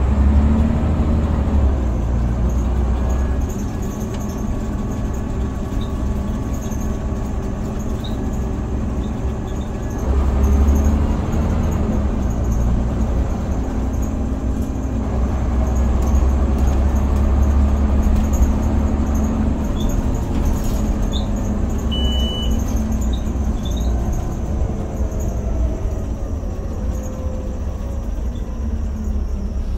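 Scania OmniCity single-deck bus heard from inside the saloon while driving: a steady low engine and road rumble that swells as it pulls away about ten seconds in and again a few seconds later. A short high beep sounds a little past two-thirds of the way through.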